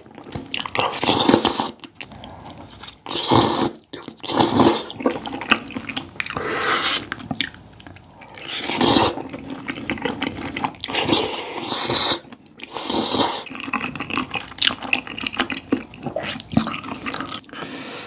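Wet slurping of sauce-coated glass noodles from spicy tteokbokki: a string of loud, long slurps, one every couple of seconds, with quieter gaps between.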